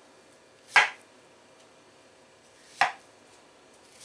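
Chef's knife chopping red dragon fruit on a wooden cutting board: sharp knocks of the blade striking the board, two about two seconds apart and a third at the very end.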